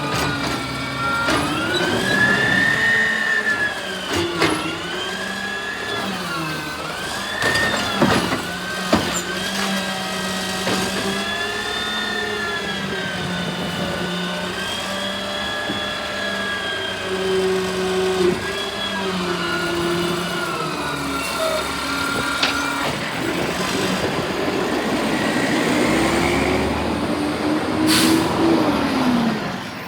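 Garbage truck engine running under changing load, its pitch rising and falling repeatedly, with a few sharp knocks about eight seconds in and a short hiss near the end.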